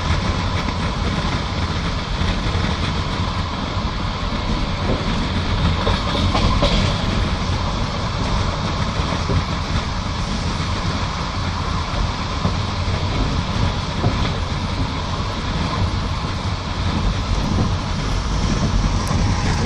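Passenger train carriage running along the line, heard from inside: a steady rumble of the wheels on the rails.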